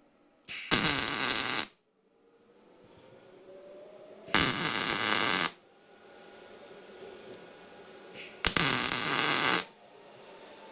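Miller MIG welder laying three tack welds on steel: three bursts of crackling arc, each about a second long and a few seconds apart, with a faint steady hum between them.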